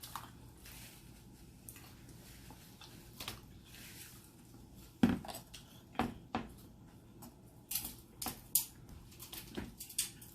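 Scattered clicks and clinks of dishes and utensils at a table while snow crab legs are picked apart, with the sharpest knock about five seconds in and several more in the second half.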